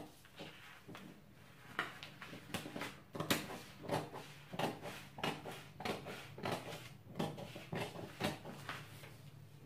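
Scissors cutting through kraft pattern paper along a curve: a run of crisp snips with paper rustling, about two a second.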